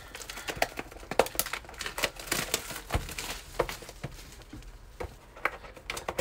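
Hands working at a shrink-wrapped cardboard trading-card box: irregular small clicks and crinkles of the plastic wrap and cardboard as the wrap is pulled away and the box top is worked open.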